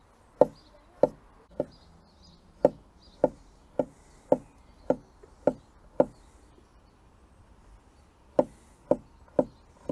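A knife slicing mini salami into rounds, each cut ending in a sharp knock on the cutting board, about two a second. The strokes pause for about two seconds past the middle, then go on.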